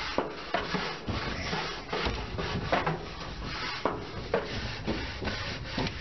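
A barbecue grill being scraped clean: rough, rasping scraping strokes at an uneven pace of about two a second.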